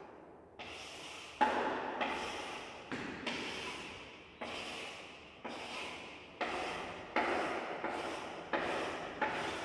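Chalk drawing long straight lines on a chalkboard: about a dozen strokes one after another, each starting with a sharp tap and scraping away as it trails off.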